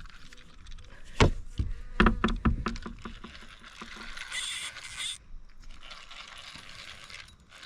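Kayak paddle being moved aside, knocking and scraping against the fishing kayak: a sharp knock about a second in, then a quick cluster of knocks about two seconds in, followed by a brief hiss about four seconds in.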